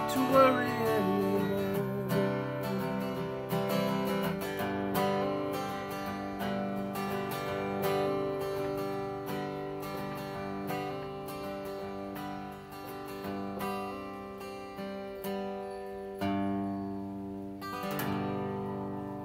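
Steel-string acoustic guitar playing a song's closing bars. The strummed chords get gradually quieter, and a last chord is strummed near the end and left ringing.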